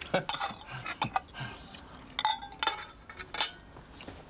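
Knife and fork clinking and scraping on plates while eating, in scattered sharp clicks, with a couple of clinks that ring briefly a little after two seconds in.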